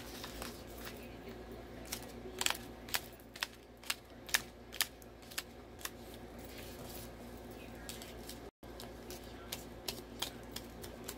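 Pages of a disc-bound planner being pressed back onto its discs: a run of sharp, irregular clicks and snaps, about one or two a second, with light paper rustle.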